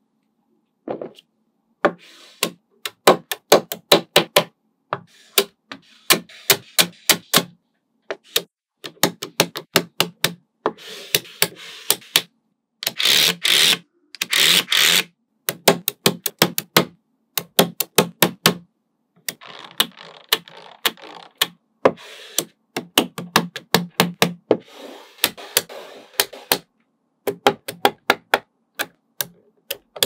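Small magnetic balls clicking sharply as they snap onto one another, in quick runs of clicks, with a couple of louder rattling stretches near the middle.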